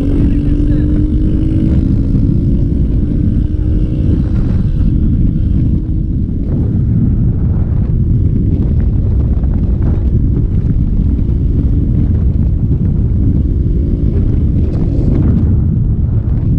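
Motorcycle engine running at cruising speed, its pitch rising slightly over the first few seconds, under a heavy rumble of wind on the microphone.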